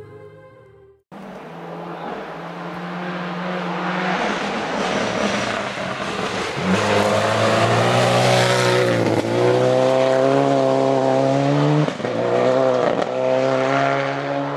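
Subaru Impreza rally car with a turbocharged flat-four engine, approaching and passing at full attack on a gravel stage. The engine climbs in pitch and grows loud, with several quick drops and rises in pitch in the loudest stretch as the driver lifts and changes gear.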